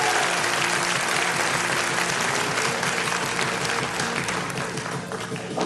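Theatre audience applauding, the applause slowly fading away, with music playing faintly underneath.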